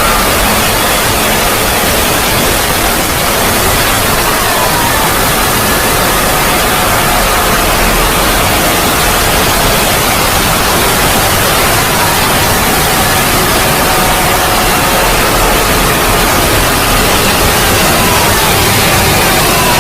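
Loud, steady static-like noise filling the whole range, with faint tones sliding up and down buried beneath it: a heavily noise-swamped sound-effect track.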